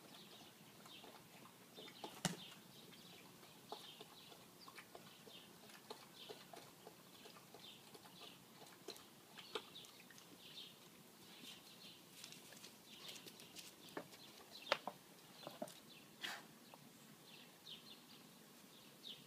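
Faint, steady chirping of small birds, with a few sharp crackles of a dog biting an empty plastic bottle.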